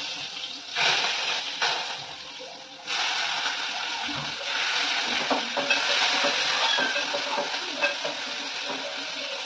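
Tomato-tamarind thokku sizzling and frying in a steel pan on a gas stove, stirred and scraped with a wooden spatula. The sizzle surges about a second in and again sharply about three seconds in, with small clicks of the spatula against the pan.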